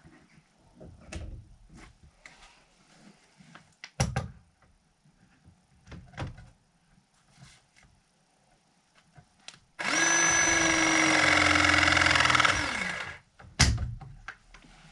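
A power drill runs steadily for about three seconds and winds down as it stops, among scattered clicks and knocks of tools being handled, with a sharp knock just after the drill stops.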